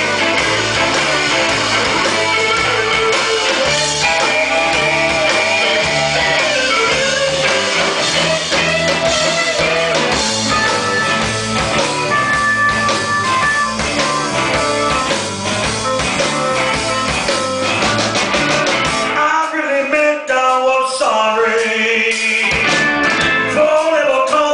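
Live blues-rock band playing through a sound check, with electric guitar and a singing voice over bass and drums. About three-quarters of the way through, the low end drops out for a few seconds, leaving guitar and voice, then comes back.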